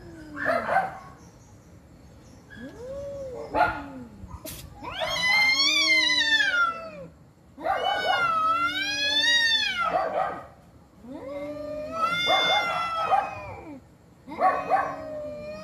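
Two cats in a standoff, yowling at each other: long, wavering caterwauls that rise and fall in pitch, three long ones in the middle, with lower drawn-out moans and shorter cries between them.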